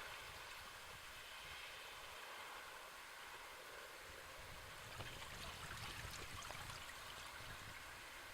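Sea waves: a soft, steady wash of water that swells slightly about five seconds in.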